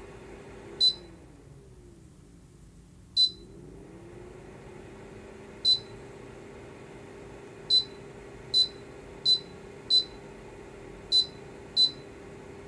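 Electrova portable dehumidifier-air purifier's control panel giving nine short, high beeps as its buttons are pressed, unevenly spaced and quicker near the end, over the unit's steady fan hum. The hum winds down after the first beep and spins back up after the second.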